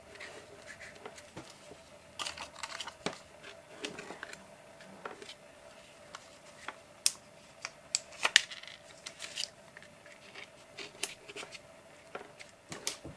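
Small irregular clicks and ticks of stick-on rhinestones being picked off a plastic sheet and pressed onto a paper page, with fingers handling the sheet, over a faint steady hum.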